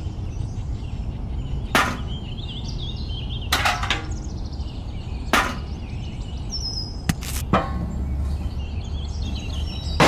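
Sharp clicks and taps of small tin buckets and a toy cement mixer being handled, roughly every two seconds, with a quick double tap past the middle, over a steady low rumble.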